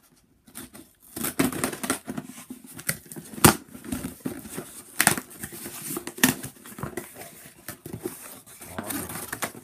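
A cardboard shipping box being torn open by hand: tape and cardboard tearing and packaging crinkling, with a few sharp snaps in the middle.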